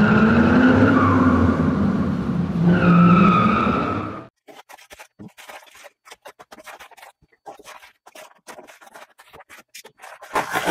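A drifting car: engine revving with tyres squealing, cutting off abruptly about four seconds in. Then a utility knife scrapes and slits a plastic mailer bag, with scattered small clicks and scrapes and a louder crackle of plastic being torn open near the end.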